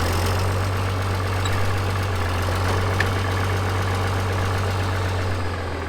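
An engine running steadily with a low drone and even mechanical noise, consistent with farm machinery idling.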